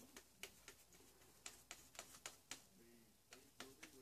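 Near silence with faint, irregular light clicks and taps from hands working a paintbrush and foam board.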